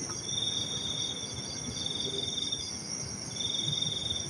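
Crickets trilling: a steady high-pitched drone with a lower, rapidly pulsing trill that breaks off briefly about three seconds in and then resumes.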